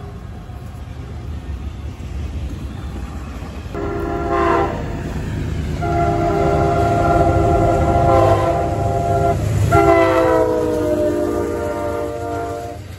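Diesel locomotive air horn with several notes sounding three times over the low rumble of a moving train: a short blast about four seconds in, then a long blast, then a third whose pitch slides down as the locomotive goes by.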